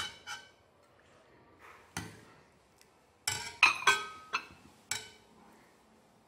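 A metal ladle clinking against the sides of a soup bowl as it stirs and scoops vermicelli soup. There are about eight scattered, sharp, ringing clinks, with the loudest coming in a quick run about three and a half to four seconds in.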